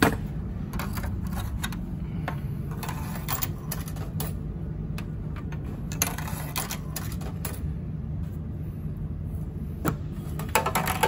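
Steady low hum of a refrigerated vending machine running, with scattered clicks and taps from its sticky coin refund button being pressed and worked, the button sticking in the engaged position.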